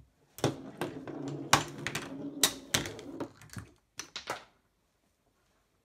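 Small balls rolling along plastic toy race track and knocking against the machine's pieces: a rattling rumble with a run of sharp clicks and knocks, stopping about four and a half seconds in.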